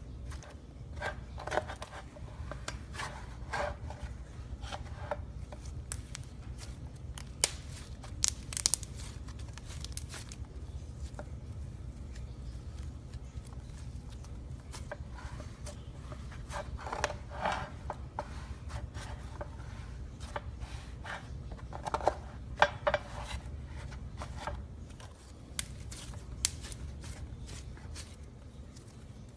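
Slime being squeezed and poked by hand, giving irregular sharp clicks and crackling pops, with clusters of squishy pops near the start, about halfway and around two thirds of the way in.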